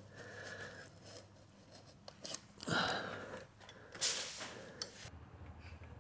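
Utility knife cutting vinyl lino flooring to fit along an edge: a few short scraping cuts with pauses between them.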